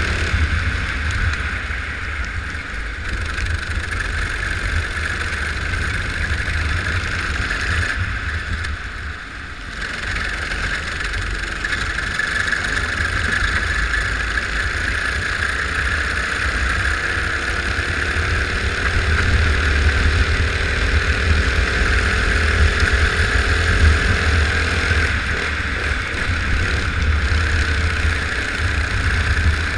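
Go-kart engine running continuously through a race lap, with heavy low wind rumble on the microphone. The level drops briefly about eight seconds in, then the engine pitch climbs slowly over the following dozen seconds.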